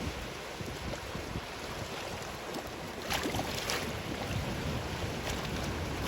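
Sea waves washing in on the shore with wind rumbling on the microphone; a louder wave surges in about halfway through.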